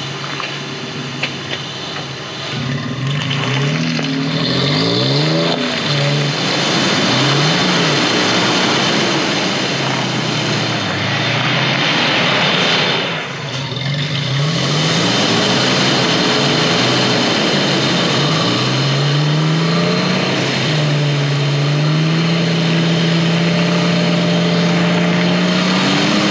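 An off-road 4x4's engine revving up and dropping back again and again as it works for traction on a slippery climb, then holding a high, slowly rising rev for the last several seconds.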